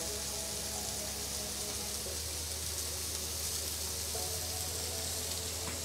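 Steady sizzling of food frying in a pan on the stove, over a low steady hum.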